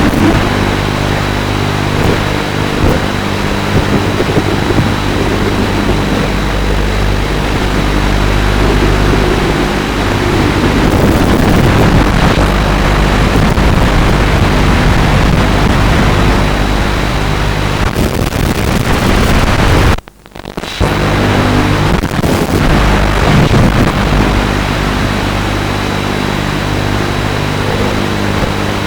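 FPV racing quadcopter's motors and propellers running, a continuous droning whir with rushing wind noise on the onboard camera's microphone. It cuts out almost completely for under a second about two-thirds of the way through, then resumes.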